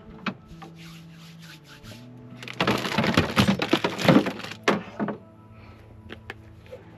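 Rummaging in a truck cab's storage drawer: packaged food crinkling and items clattering, busiest and loudest from about two and a half to four and a half seconds in, with a few single knocks before and after as a plastic box is lifted out. Soft background music runs underneath.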